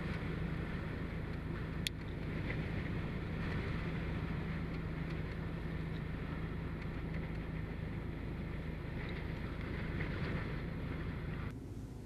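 Strong blizzard wind blowing over the microphone, a steady rumbling rush with a low hum underneath. A single sharp click about two seconds in.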